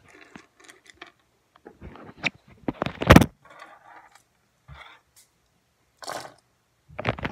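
Handling clatter: a string of knocks, clicks and scrapes, the loudest a sharp knock about three seconds in.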